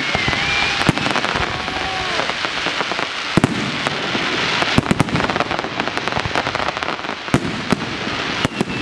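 Aerial fireworks shells bursting, their stars crackling in a dense, continuous run of rapid pops, with a few louder bangs standing out.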